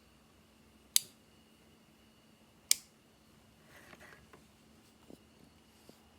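Two sharp clicks, about a second in and again under two seconds later, followed by faint rustling and a couple of small ticks from something being handled.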